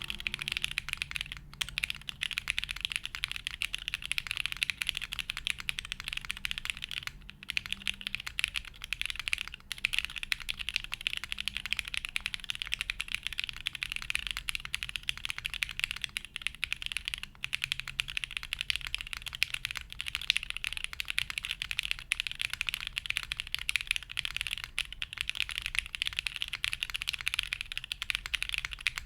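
Continuous typing on a custom mechanical keyboard: a Portal by Parallel Limited with lubed SP-Star Sacramento switches on a polycarbonate half-plate with no dampening, fitted with GMK keycaps. The keystrokes come as a dense, uneven patter of short clacks.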